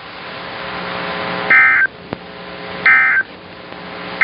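EAS end-of-message digital code: short warbling data bursts about a third of a second long, repeated at roughly 1.3-second intervals, with the third beginning near the end. Underneath is radio static that slowly grows louder.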